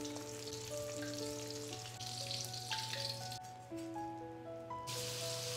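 Hot oil sizzling as batter fritters deep-fry in ladle molds in a wok, under background music of slow held notes. The sizzle breaks off about three and a half seconds in and a similar hiss returns near the end.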